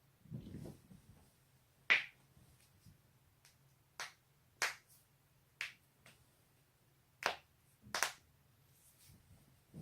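Spinal joints of a person cracking: about six sharp, separate pops at uneven intervals, the loudest about two seconds in. A low, muffled rustle comes in the first second.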